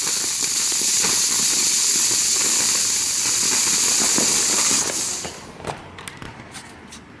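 Small ground fountain firework spraying sparks with a steady loud hiss. It burns out about five seconds in, and the hiss stops, leaving a few faint crackles and ticks.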